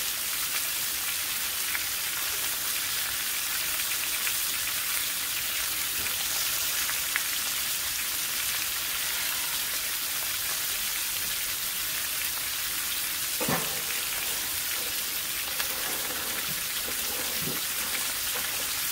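Seasoned beef roast searing in hot grease in a skillet: a steady sizzle with faint pops, and a soft knock about thirteen seconds in.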